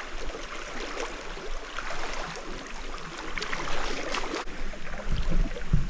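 Wader-clad legs sloshing through a shallow river toward the bank, over the steady rush of flowing stream water, with a few sharper splashes and steps in the second half.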